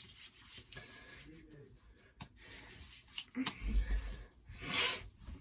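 Hands rubbing lotion into the skin of the arms: soft, intermittent swishing strokes, with a louder swish and a low thump near the end.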